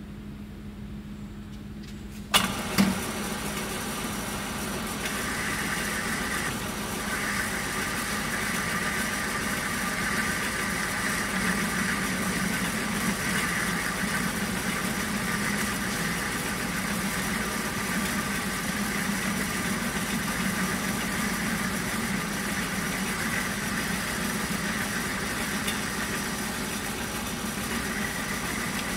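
Centre lathe starting up: a low hum, then two sharp clunks about two seconds in as the spindle engages, after which the chuck runs steadily with a low hum and a higher whine.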